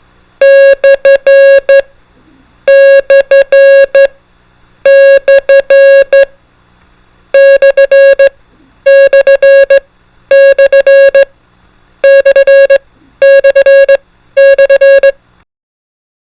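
Morse code sent as a sharp, mid-pitched electronic beep, keying the slash/stroke character (dah-dit-dit-dah-dit) nine times over, the later groups sent faster.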